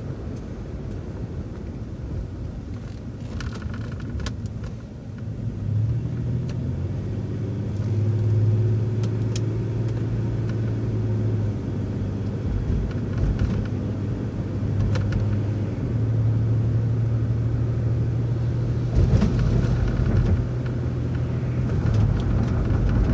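City transit bus engine running, heard from inside the bus as it makes a turn and pulls away, with a steady low drone that grows louder about six seconds in as it picks up speed.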